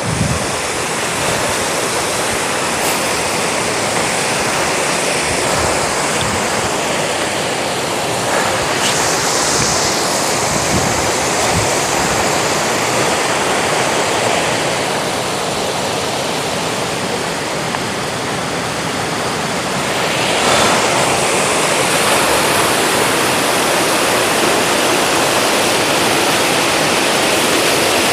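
Waterfall pouring down, running high with rainy-season flow: a loud, steady rush of falling water that grows a little louder about twenty seconds in.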